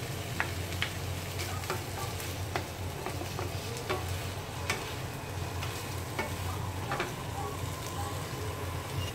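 Tofu cubes, green chilies and onions sizzling in a frying pan while two wooden spatulas stir and toss them, with irregular clicks and scrapes of wood against the pan. The stirring stops near the end, leaving the sizzle and a steady low hum.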